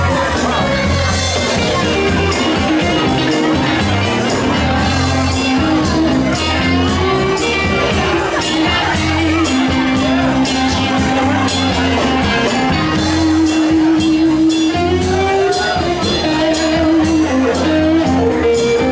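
Live band playing loudly, heard from among the audience: a drum kit keeps a steady beat under bass and electric guitar.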